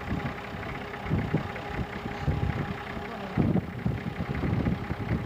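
Off-road vehicle's engine running, with several irregular low thumps and rumbles.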